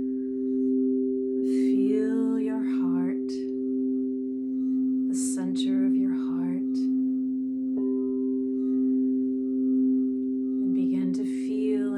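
Crystal singing bowls sustaining two steady tones with a slow, wavering swell, and a third, higher tone joining about two-thirds of the way in. Over them, a wordless voice tones in three short phrases.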